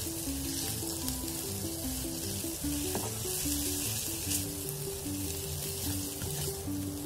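Spaghetti in tomato and tuna sauce sizzling in a frying pan as it is stirred and tossed with a spatula, a steady high hiss. Background music with a simple stepping melody plays underneath.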